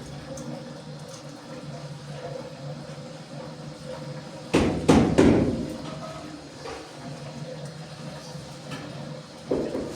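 A quick run of three loud knocks about halfway through and one more knock near the end, over a steady low hum.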